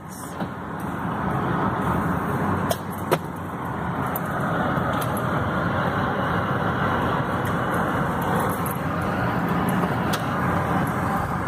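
Steady road noise inside a car's cabin while driving, building over the first couple of seconds and then holding even, with a few sharp clicks about three seconds in.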